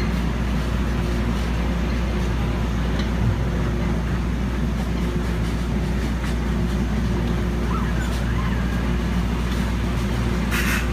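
Fairground machinery running with a steady low drone while a kiddie car carousel turns, with faint voices in the background and a brief hiss near the end.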